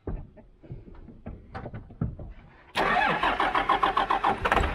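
A 12-valve Cummins 5.9 L inline-six diesel cranked on its starter, a fast even chugging that starts suddenly about three-quarters of the way through, after a few faint knocks. The injection lines are cracked at the injection pump to bleed air from a fuel system that has sat for years.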